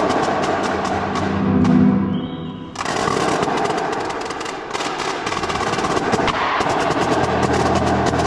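Indoor percussion ensemble playing: fast, dense drum and mallet strokes over sustained low bass tones. The music drops out briefly about two and a half seconds in, then resumes.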